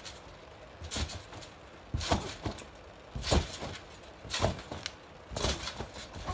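A person jumping on a trampoline: the thud of each landing on the bouncing mat, five times at about one bounce a second.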